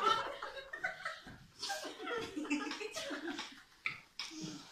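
People chuckling and laughing quietly in short bursts, broken by brief pauses.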